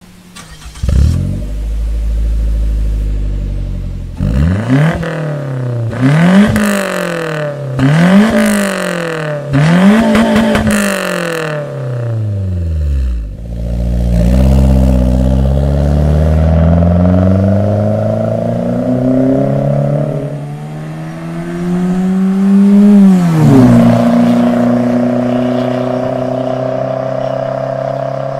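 Perodua Myvi's small four-cylinder engine through an aftermarket Max Racing R555 performance muffler, sold to give a V6-like note. It starts about a second in and idles, is blipped four times in quick revs, then pulls away and accelerates through the gears, with two shifts, before settling to a steady run.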